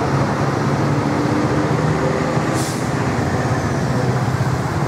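High-deck tour bus's diesel engine running steadily as the bus pulls out and turns, with a short hiss of air, like an air-brake release, about two and a half seconds in.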